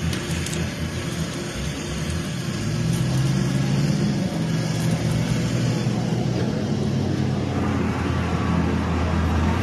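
Heavy stone-crushing machinery running with a steady low drone, which gets louder about three seconds in.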